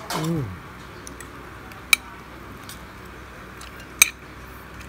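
Metal utensils clinking against cookware: two sharp clinks about two seconds apart over a faint steady hiss.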